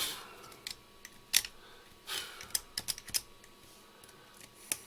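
Small steel brush scrubbing battery-leak corrosion off the plastic of an old meter's battery compartment: irregular short scratches and sharp clicks, the loudest about a second and a half in and a cluster near the middle.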